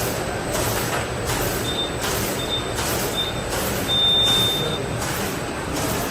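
Back-seal pouch packaging machine running, with a regular hissing stroke about every 0.6 seconds as it cycles. Midway, three short high beeps and then a longer one sound over it.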